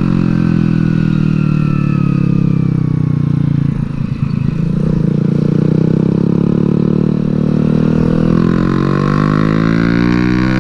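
Sportbike engine running hard under way, heard from on board, holding a steady pitch. About four seconds in the sound breaks up briefly, like a gear change, then the engine revs climb in pitch over the last few seconds.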